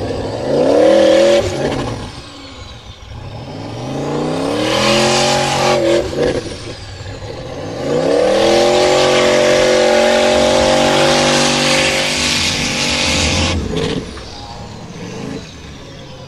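Formula Offroad hill-climb car's engine revving hard in bursts as it claws up a steep dirt slope: two short revs, then a long stretch held at high revs that cuts back suddenly near the end. A loud hiss of spinning wheels throwing dirt runs under the high revs.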